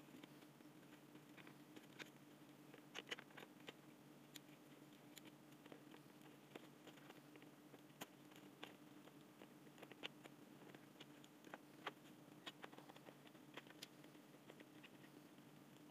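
Near silence with faint, scattered clicks and taps from the plastic parts and wires of a cordless drill being handled and fitted back into its housing by hand, over a steady low hum.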